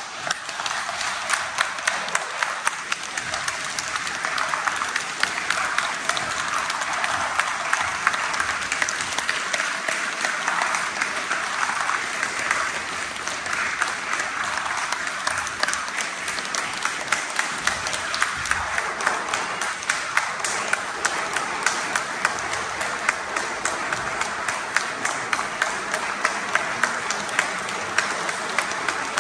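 Audience applauding, breaking out suddenly at the start and keeping up steadily, with sharp single claps standing out loud close by.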